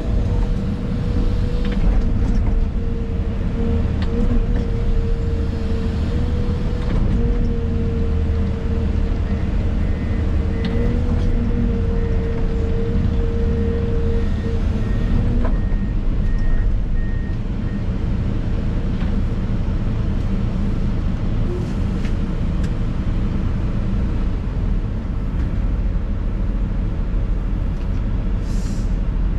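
Excavator's diesel engine running steadily, heard from inside the cab, with a steady whine through the first half that stops about halfway through and a few scattered knocks.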